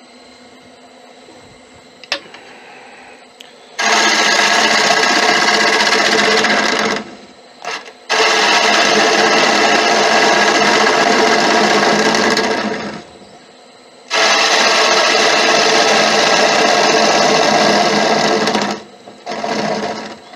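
Turning tool cutting a monkey puzzle bowl spinning on a wood lathe: three steady passes of about three to five seconds each, with the lathe's quieter running sound between them. These are light finishing cuts across the bottom of the bowl.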